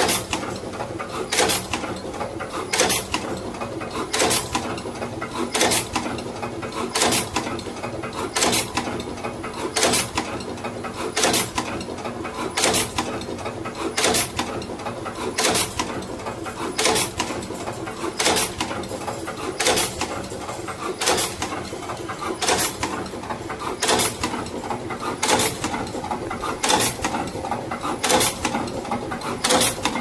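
Fully automatic wire cutting, stripping and crimping machine running in production: a sharp clack about every one and a half seconds, one per wire cycle, over a steady mechanical hum.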